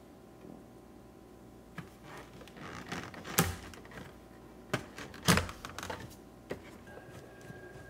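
Plastic trim clips of a Toyota JZX90's gauge-cluster surround being pulled loose by hand. Handling and scattered clicks are broken by two loud sharp snaps, about two seconds apart, as the clips let go.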